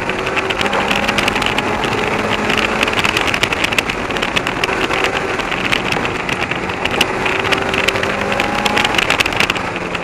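1994 Mazda Miata's four-cylinder engine pulling hard through an autoslalom run, its note climbing twice as the car accelerates. Over it is a steady hiss of water spraying off the tyre on the wet track, with wind buffeting the microphone.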